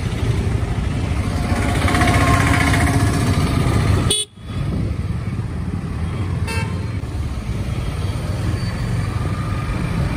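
Motorcycle running on the road with a steady engine and road rumble. A vehicle horn sounds about two seconds in, and a short toot follows at about six and a half seconds. The sound cuts out briefly about four seconds in.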